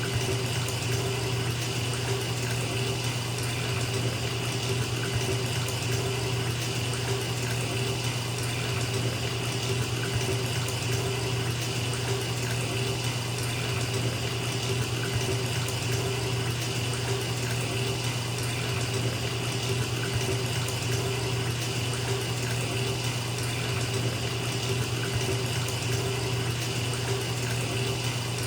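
Tap water running steadily into a filling bathtub, a constant splashing rush with a low hum under it.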